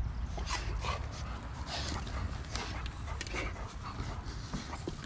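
Rottweiler digging in loose dry dirt with its front paws: irregular scrapes and scuffs of soil, over a steady low rumble.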